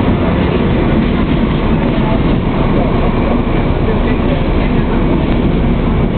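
DB class 218 diesel-hydraulic locomotive, uncoupled from its train, running light and pulling away with its diesel engine running as a steady, low, heavy rumble.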